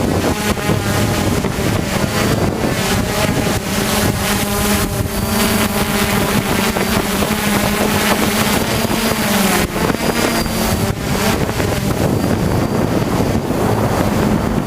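Hexacopter's six electric motors and propellers running with a steady buzzing hum whose pitch wavers and shifts as the craft holds itself against the wind, with wind buffeting the microphone.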